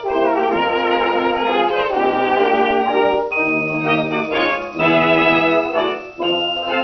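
Dance orchestra playing a waltz, transferred from a 78 rpm shellac record: held chords in the band with a dull, treble-cut sound, and a short dip in loudness about six seconds in.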